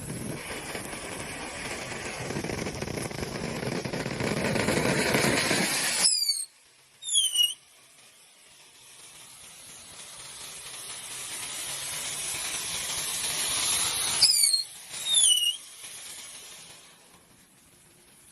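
Spinning novelty 'meteor spaceship' firework hissing and swelling for about six seconds, then cutting off into a couple of short, loud, falling whistles as small spinners fly out; the hiss builds again and ends in the same way about fourteen seconds in.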